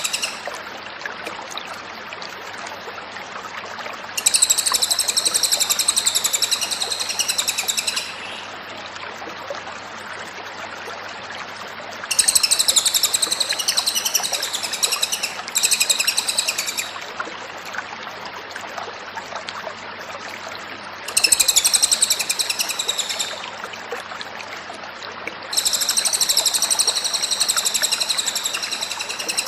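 Cililin songbird singing in bursts of rapid, high trilling, each lasting a few seconds with pauses between, five bouts in all, over a steady hiss.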